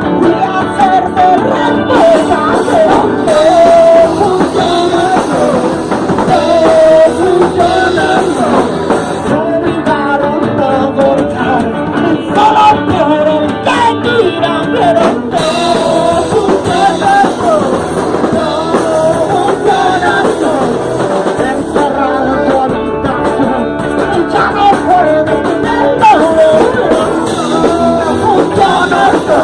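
Rock band rehearsing: singing over guitar and drums.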